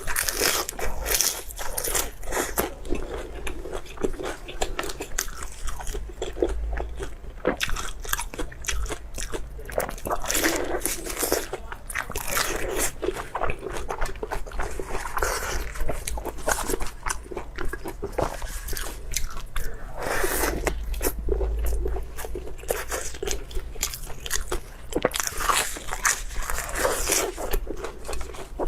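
Close-miked mukbang eating sounds: a person biting and chewing food, with a dense run of quick, irregular mouth clicks and smacks.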